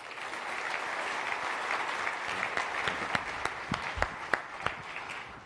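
Audience applauding: the clapping swells in right at the start, holds, and thins out toward the end, with single sharp claps standing out in the later part.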